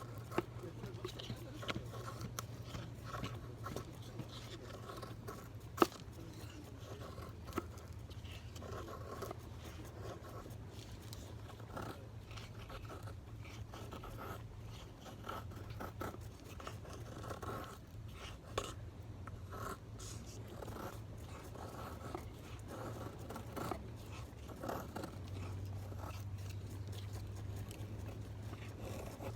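Repeated scraping and handling strokes with a few sharp clicks, the loudest about six seconds in, over a steady low hum.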